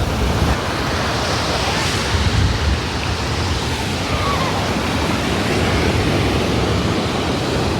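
Surf washing on a sandy beach, a steady rush of noise, with wind rumbling on the microphone.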